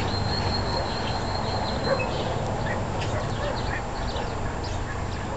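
Birds chirping: many short calls over a steady outdoor hum, with a thin steady whistle during the first two seconds and a brief louder call about two seconds in.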